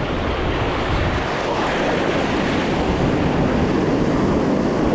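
Ocean surf breaking and washing up the beach, a steady rush that swells slightly toward the end, with wind rumbling on the microphone.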